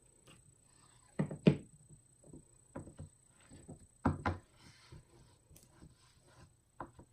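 Scattered knocks and taps on a hard surface, with a pair of sharper knocks about a second in and another pair around four seconds, and light rustling between them.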